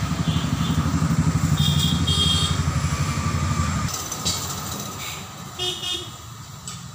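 An engine running with an even low throb that cuts off abruptly about four seconds in, with brief high-pitched toots around two and six seconds in.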